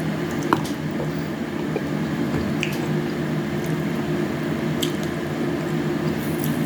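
Wet squishing and scattered clicks of a juicy honey orange being eaten close to the microphone, over a steady low hum.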